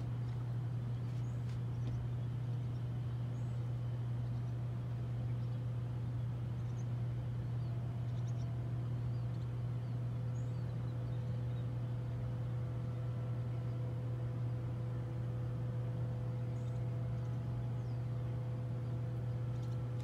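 A steady low mechanical hum, with a few faint, brief high bird chirps now and then. A couple of fainter steady higher tones join the hum about halfway through.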